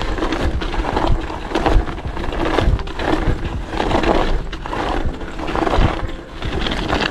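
Mountain bike tyres rolling and crunching over packed snow with ice underneath, in repeated surges as the bike runs over the pump-track bumps.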